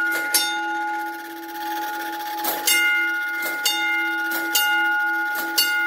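Gamewell fire alarm telegraph gong being struck by its mechanism, tapping out an alarm box number in groups of strokes. One stroke comes near the start, then after a pause of about two seconds the strokes come about once a second. The brass rings on between strokes, and a light mechanical click comes just before each stroke.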